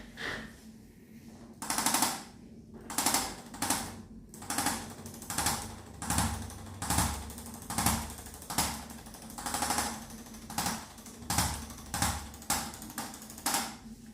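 Handheld chiropractic percussion instrument firing rapid taps against the patient's spine in short bursts, about sixteen bursts, each under half a second long.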